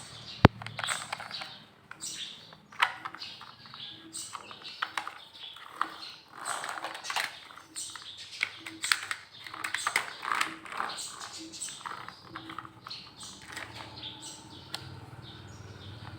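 Plastic toy vehicles clicking and clattering as they are handled and taken from a basket, a sharp knock about half a second in, with birds chirping in the background.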